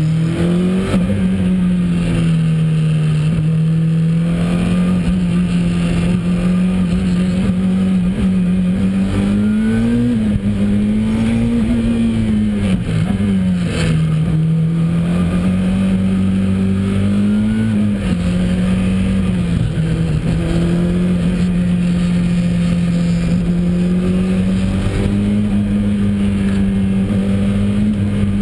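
Ford RS200 Evolution's turbocharged four-cylinder rally engine heard from inside the cabin, pulling hard at high revs. The note holds mostly steady, with a few short rises and dips in pitch, about ten to thirteen seconds in and again near eighteen seconds.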